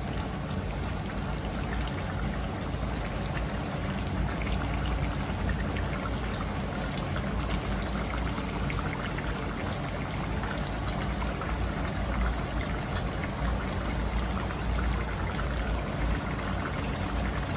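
Mutton sizzling in hot ghee in a steel karahi, a steady frying hiss, with a few faint ticks as tomatoes are dropped into the pan.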